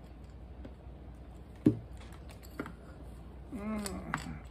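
Handling noise of a plastic security camera and its cable: scattered small clicks and rustles, with one sharp click about a second and a half in. Near the end there is a brief hum from a voice.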